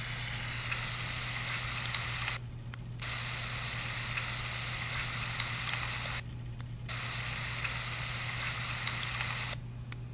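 Handheld digital voice recorder playing back an EVP recording through its small speaker: steady hiss over a low hum that cuts out briefly three times, about every three and a half seconds, as the same stretch of recording replays.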